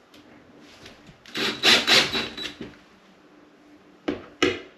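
DeWalt 20V cordless drill-driver run in several short trigger bursts, driving a screw through a steel light-fixture mounting plate into a plastic wall anchor, with a motor whine under the noise of the screw biting in. A few shorter bursts come near the end as the screw is snugged down.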